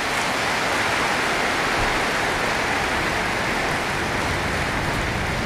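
Audience applauding: a steady, dense patter of many hands clapping that holds at an even level.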